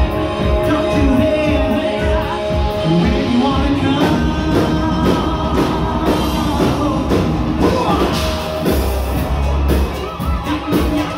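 Live rock band playing loud: drum kit, electric guitar and a lead singer on microphone, amplified through a PA.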